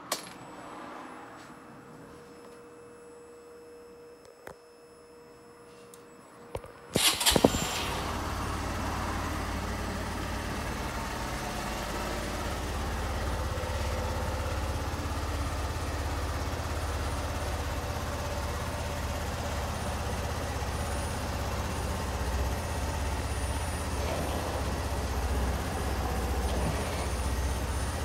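Kawasaki J125 scooter's 125 cc single-cylinder four-stroke engine starting about seven seconds in, then idling steadily. Before it starts there is only a faint steady hum and a couple of clicks.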